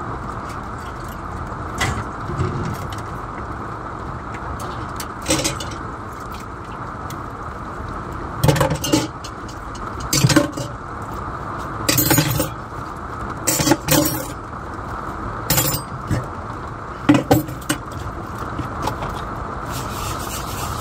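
Dishes and utensils clinking and knocking against each other and a stainless steel sink as they are washed by hand, in about eight short clatters, over a steady hiss.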